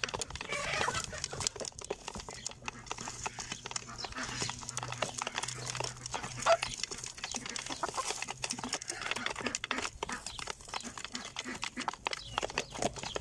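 Chickens pecking grain from a feeder: a rapid, irregular patter of beak taps, with scattered clucks and one louder short call about six and a half seconds in.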